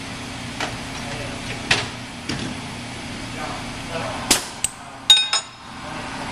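Metal hand tools clinking and knocking against the bolts and iron casing of a centrifugal pump during assembly: a few scattered sharp metallic clicks, then a quick cluster from about four seconds in, the loudest near the end ringing briefly. A steady shop hum runs underneath.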